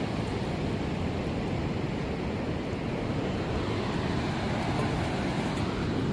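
Steady low rush of ocean surf and wind.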